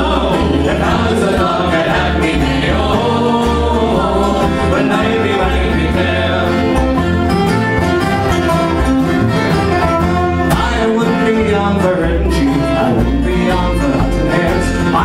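Live folk band playing together: banjo, fiddle, acoustic guitar and upright bass, the bass keeping a steady beat under the melody.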